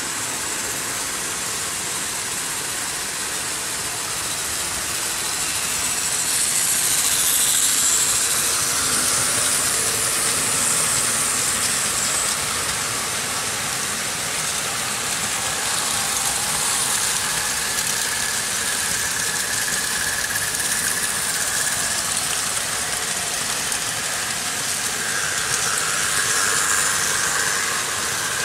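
Several vintage Märklin H0 model trains running on metal M-track: a steady rolling hiss of wheels and motors, swelling about seven seconds in and again near the end as a train passes close.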